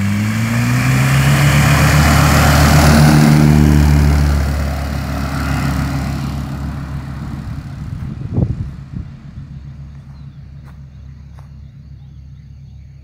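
Homebuilt light aircraft's propeller engine opened up to full power for the takeoff run. The note rises as the throttle comes up, is loudest as the plane passes close about three seconds in, then fades as it runs away down the strip. A short loud thump comes about eight seconds in.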